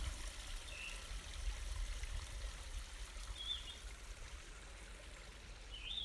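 Faint steady hiss, with a few brief faint high squeaks.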